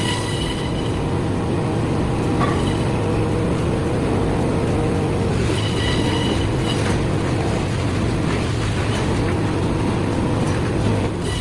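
A heavy vehicle running steadily with a loud rumble, with a thin high squeal near the start and again about six seconds in.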